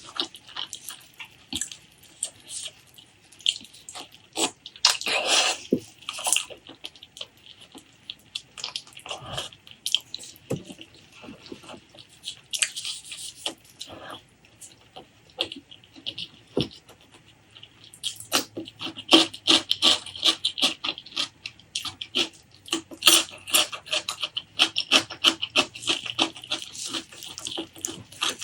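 Close-miked wet chewing and lip-smacking while eating spicy pork leg curry with rice: a stream of irregular short smacks and clicks that becomes quicker and denser in the last third.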